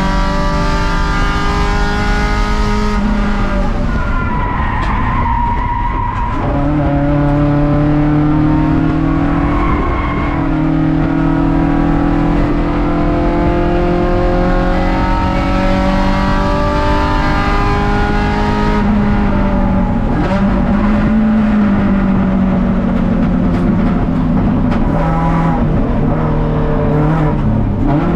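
Race car engine at high revs, heard inside the stripped, roll-caged cabin, its note shifting in pitch a few times, then a dip and quick rise near the end as the car slows for a corner.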